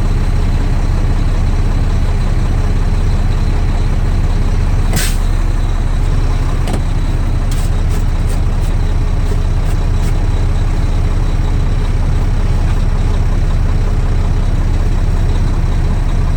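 Semi-truck's diesel engine idling steadily, heard from inside the cab, with a short hiss about five seconds in and a few light clicks soon after.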